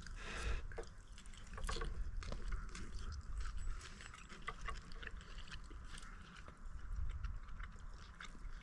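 People eating with spoons: scattered small clicks and taps of spoons and chewing over a low steady rumble.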